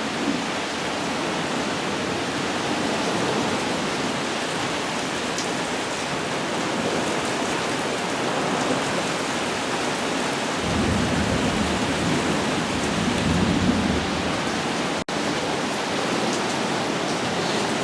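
Heavy rain pouring steadily in a thunderstorm, with a low rumble of thunder for a few seconds past the middle.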